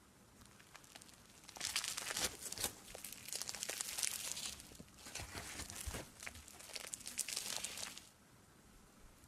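Hands squeezing and pulling apart a fluffy slime coated in tiny beads, giving a crackling of many small pops. It starts about a second and a half in and stops at about eight seconds.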